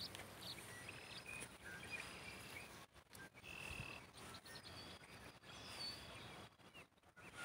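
Faint bird calls: scattered short chirps and whistles over a low steady hiss of outdoor background noise.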